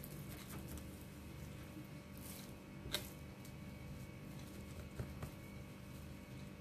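Faint, small sounds of a kitchen knife cutting raw wild boar meat away from the leg bone: soft wet slicing, with a few sharp clicks as the blade touches bone or the plastic cutting board, the clearest about three seconds in and another about five seconds in, over a low steady room hum.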